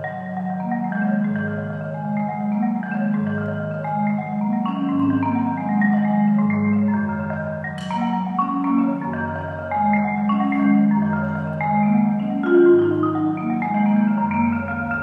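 A Marimba One concert marimba played with four mallets: ringing low bass notes under a dense run of quicker higher notes. A single sharp click sounds about eight seconds in.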